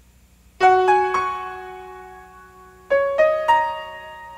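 Piano music: two short phrases of three struck notes each, the second phrase about two seconds after the first, each note left to ring and slowly fade.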